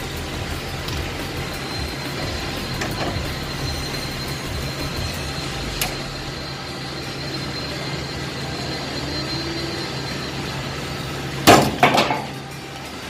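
Bolt cutters cutting through a shipping container's door seal: two sharp metallic snaps half a second apart near the end, over a steady low hum.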